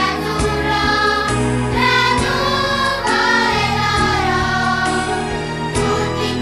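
Children's choir singing together over instrumental accompaniment with a steady bass line and occasional beat strokes.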